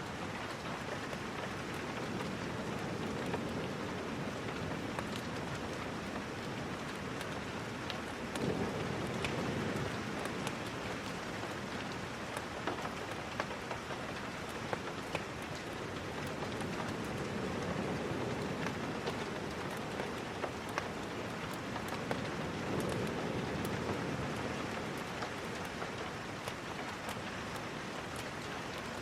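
Steady rain falling, with scattered sharp ticks and a few slow low swells rising and fading every several seconds.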